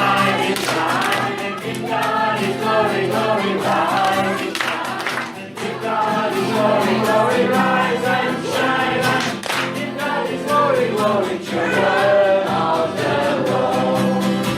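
A crowd of people singing an action song together over instrumental backing music with a steady beat.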